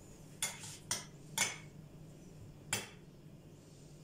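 A metal utensil clinking against a plate four times, in quick succession and then once more a little later, as filling is scooped into a bread roll.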